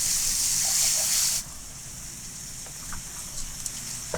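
Minced meat frying with onion and garlic in oil in a pan: a steady sizzle that drops off abruptly about a second and a half in, leaving a quieter hiss with a few faint clicks.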